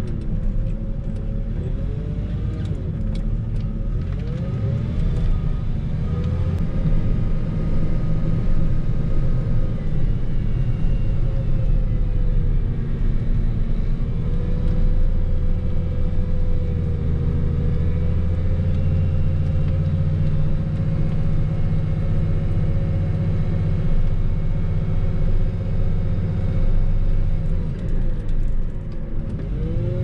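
Engine of a snow-plowing machine running under load, its pitch rising and falling as it speeds up and slows. About halfway through it holds steady for several seconds, over a deep rumble.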